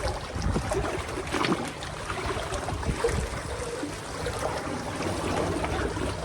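Water washing and lapping at the shore, with wind buffeting the microphone as a steady low rumble.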